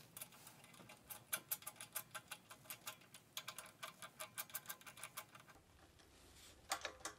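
Faint rapid clicking of a ratchet wrench, in two runs of about seven clicks a second and a few more near the end, as the ignition coil's mounting bolts are run in loosely.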